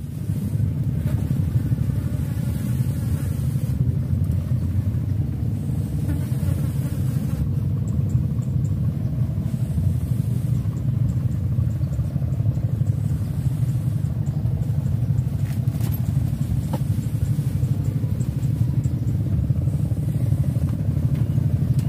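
A steady low rumble with no clear pitch.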